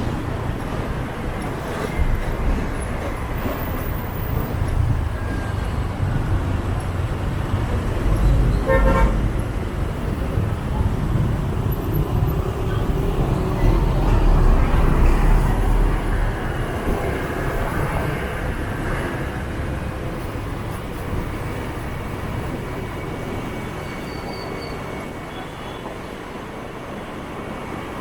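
Motor scooter riding in dense city motorbike traffic: a steady mix of engine and road noise, with a brief horn toot about nine seconds in. The low rumble swells in the middle and eases toward the end.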